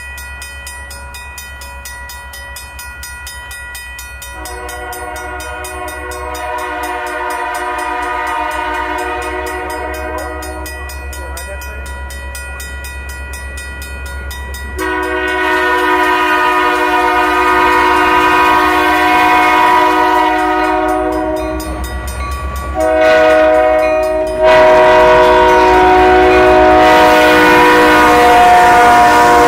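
Reading and Northern GP30u diesel locomotive's chime air horn blowing the grade-crossing signal, long, long, short, long, growing louder as the train comes close and passes. A low rumble of the moving train runs underneath.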